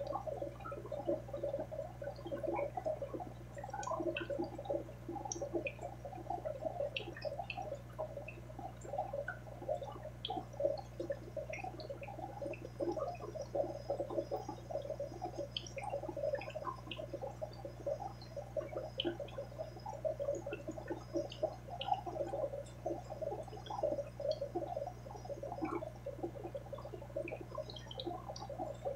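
Aquarium water bubbling and gurgling steadily, with many small bubble pops, over a low steady hum.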